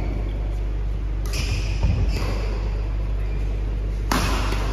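Steady low hum and background noise of a large indoor sports hall between rallies, with one sharp hit about four seconds in.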